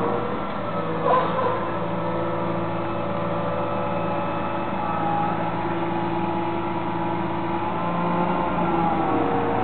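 Fendt 936 tractor's diesel engine running steadily under load while the hydraulic push-off wall of an Annaburger SchubMax 29.17 trailer pushes maize silage out of the rear. The running carries several steady tones that drift a little in pitch, with a brief sharp noise about a second in.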